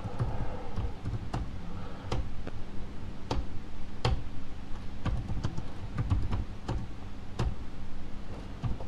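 Typing on a computer keyboard: irregular keystrokes, with several louder single key clicks spaced a second or so apart.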